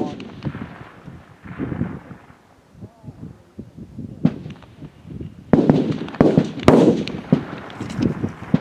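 Rifle shots from competitors on a long-range target-rifle firing line: several sharp reports at irregular intervals, few at first and then a louder run of them in the second half, each trailing off briefly.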